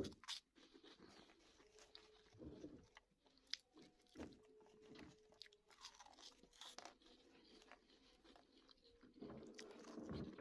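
A person biting and chewing crunchy Bozo snack balls: repeated faint, sharp crunches.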